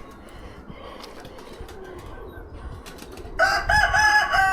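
A cockerel crowing, starting about three seconds in: a few short broken notes and then one long held final note.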